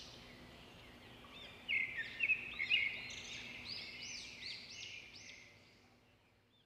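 Birds chirping: many short, quick chirps overlapping, busiest a couple of seconds in, then fading away toward the end.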